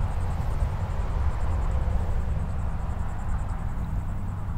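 Wind buffeting the microphone as a steady low rumble, with a faint insect buzz pulsing rapidly and evenly high above it.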